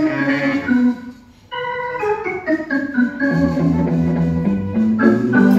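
Keyboard played in a sound check: chords and notes with runs stepping downward. It breaks off briefly about a second in, then picks up again.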